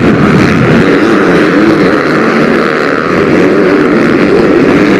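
Several MX2 motocross bikes racing on the track, their engines revving up and down.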